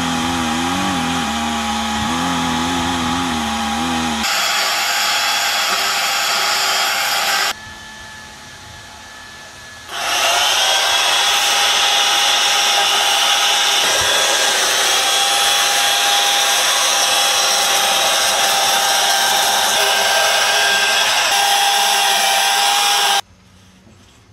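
Chainsaws running at full throttle, cutting into large blocks of wood with a steady high whine. The sound drops to a quieter running level for a couple of seconds about a third of the way in, surges back up at about ten seconds, and cuts off near the end.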